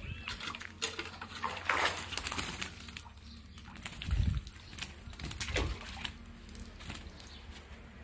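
Water splashing, sloshing and dripping as a mesh net frame is scooped through a shallow fish tank, with fish flapping in the net. There is a heavier dull thump about four seconds in.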